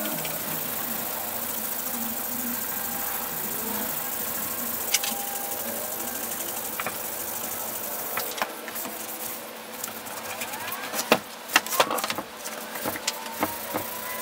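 Cloth rubbing back and forth against the metal housing of a vintage Porter-Cable BB10 belt sander. In the second half, sharp knocks and clunks as the sander is handled and stood up on its end.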